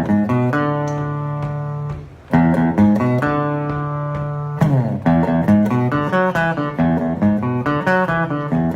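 Background music: a melody of plucked notes over held chords, dipping briefly about two seconds in and cutting off suddenly at the end.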